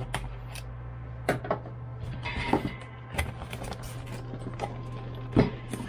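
Cardboard motherboard box being handled and opened: scattered taps, scrapes and knocks of cardboard, the loudest a sharp knock near the end, over a steady low hum.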